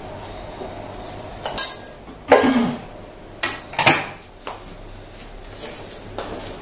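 Kitchen pots and metal utensils clattering and clinking: four louder knocks in the first four seconds, the loudest about two seconds in, then lighter clinks.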